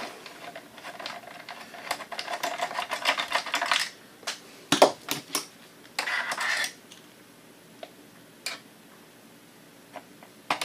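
Rapid clicking, tapping and rattling of screwdrivers against the metal chassis of a Kodak Carousel slide projector as its small screws are taken out. There is one sharp knock about five seconds in and a brief scrape just after. It then goes mostly quiet, with a few faint clicks.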